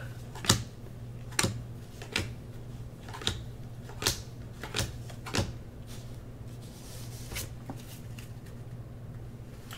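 Football trading cards being flipped off a stack by hand, each card giving a short sharp flick about once a second. The flicks stop a couple of seconds before the end.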